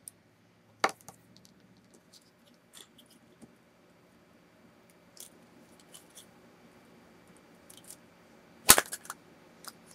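Sparse clicks and taps of hard plastic toy figures and plastic eggs being handled and set down on a tabletop, with one sharper crack near the end.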